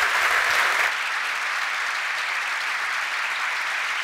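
A large audience applauding: steady, dense clapping that drops a little in loudness after about a second and then holds.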